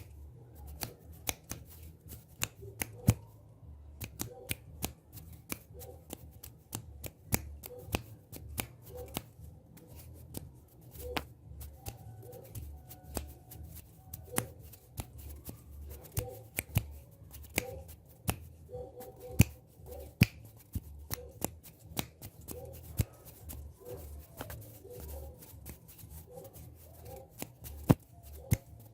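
Hands making close-up ASMR sounds: sharp finger snaps and clicks at an irregular pace, several a second, with soft rustling between them over a low hum.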